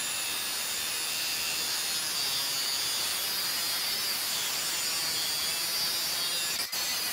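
Small angle grinder running with its disc held against a rod in a vise: a steady grinding hiss as it takes a millimetre or two off, broken briefly near the end.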